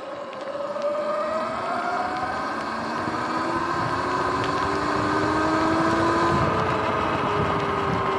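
Sur-Ron electric dirt bike's motor and drive whining, rising in pitch as it speeds up, then easing off a little near the end, over steady wind and road noise.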